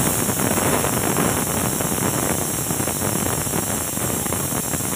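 A loud, steady rushing hiss that starts suddenly and holds even throughout, like steam venting or water running hard.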